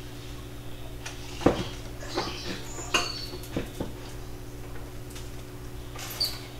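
Short knocks and clinks of bottles and kitchen items being set down and moved on a granite countertop beside a sink, about seven in all, the loudest about a second and a half in. A steady low hum runs underneath.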